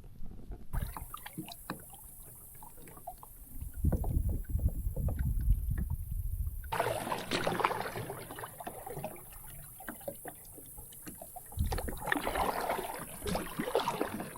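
Water splashing and sloshing around a kayak in uneven stretches, with scattered clicks and knocks of gear being handled on the hull.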